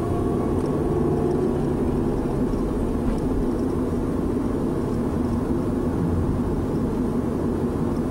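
A car driving along a town road, heard from inside the cabin: steady engine and tyre rumble.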